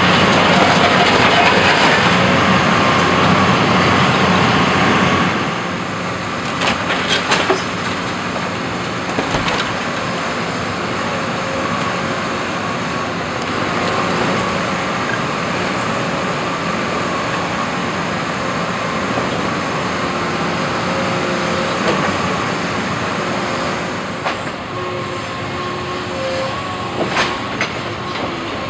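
Cat 324E hydraulic excavator running on a demolition site, its sorting grab working through broken masonry: a loud dense crunching and scraping of rubble for the first five seconds or so, then steadier engine and hydraulic running with a faint whine and a few short clanks.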